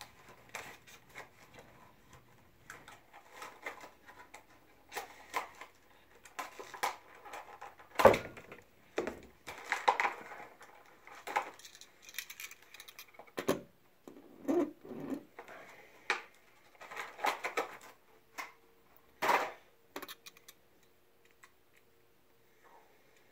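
Hands handling a small Greenlight diecast model car: scattered small clicks, taps and light rustles, the sharpest click about 8 seconds in. A faint steady hum comes in near the end.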